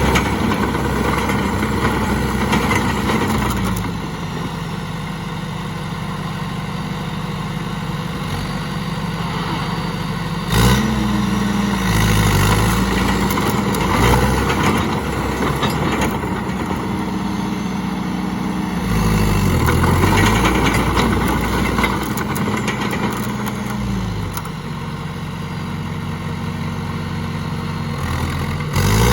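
John Deere 450C loader backhoe's diesel engine running, its speed dropping and climbing back several times, with one sharp clunk about ten seconds in.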